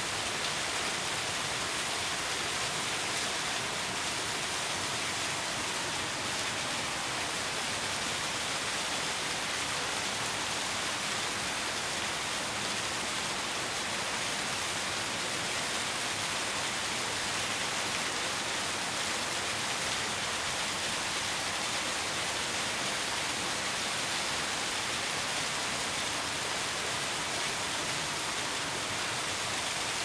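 A small rocky woodland stream rushing and splashing over stones in little cascades, a steady even rush of water.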